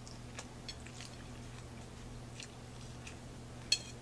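Faint chewing of a mouthful of spinach, chicken and cucumber salad: scattered soft wet clicks and crunches, with one sharper click near the end, over a low steady hum.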